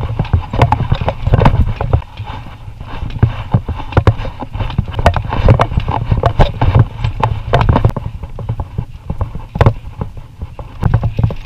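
Bicycle rattling and clattering as it rides over a rough, stony dirt road: irregular sharp knocks as the bike jolts over stones and ruts, over a steady low rumble.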